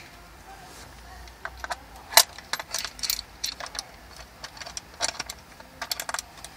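A string of sharp plastic clicks and rattles as a tablet and its plastic universal holder are handled and connected together, the loudest click about two seconds in.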